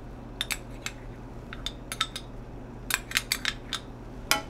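A metal spoon clicking and scraping against a measuring cup and a stainless-steel saucepan: a dozen or so light, irregular clicks over a steady low hum.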